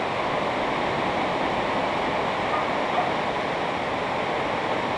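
A river in flash flood, its muddy floodwater rushing past in a steady, unbroken rush of water.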